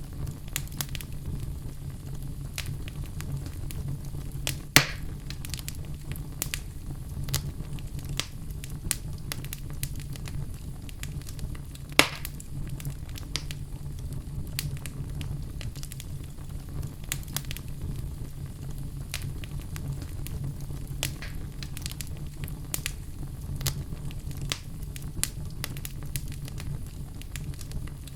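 Crackling fire sound effect: a steady low rumble with frequent small crackles and pops. Two louder pops come about five and twelve seconds in.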